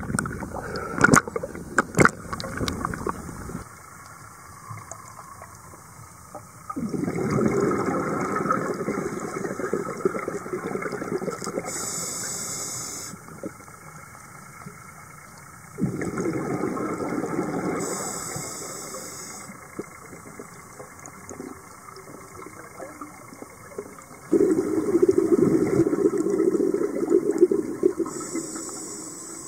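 Splashing at the water's surface for the first few seconds, then a scuba diver's regulator breathing underwater: three long bubbling exhalations a few seconds apart, each with a short high hiss near its end.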